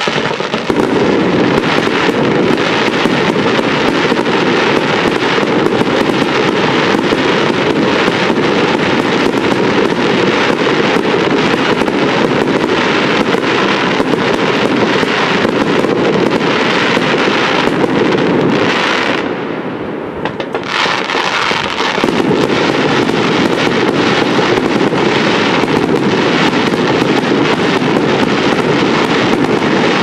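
Fireworks display: a dense, continuous barrage of bangs and crackle from aerial shells and rising comets. It eases briefly about two-thirds of the way through, then resumes at full density.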